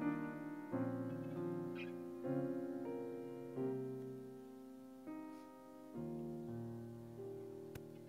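Grand piano playing a slow, gentle introduction to a hymn. A new chord is struck every second or so and left to ring and fade.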